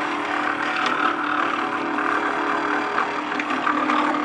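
NEMA 17 stepper motor turning a rotary base through a 3D-printed plastic spur gear reducer, running with a steady whine made of several held tones, with a few faint clicks on top.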